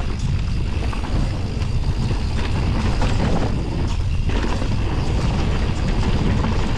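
Wind buffeting the microphone on a mountain bike riding downhill at speed, with tyre rumble on the trail and scattered rattling clicks from the bike over bumps.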